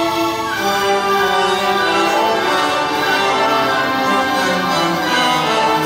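A symphony orchestra playing live, with strings and brass holding full sustained chords that change about half a second in.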